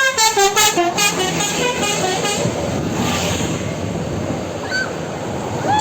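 Bus 'telolet' musical horn playing a quick run of rapidly changing notes for about two and a half seconds. After it comes the steady rush of the passing bus and traffic.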